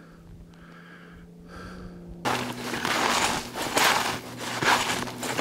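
Soft breathing, then from about two seconds in, snowshoe footsteps crunching through deep snow, roughly one step a second.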